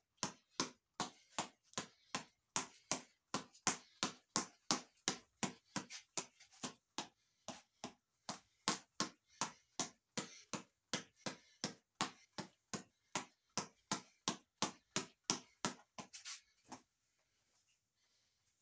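Headband reflex ball being punched over and over in a steady rhythm: sharp taps, roughly two to three a second, that stop shortly before the end.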